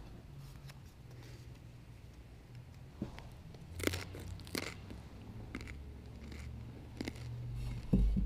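Small clicks and crunches about four seconds in as the priest breaks and eats the communion host, then a low thump near the end, the loudest sound, as he handles the altar vessels (paten and chalice).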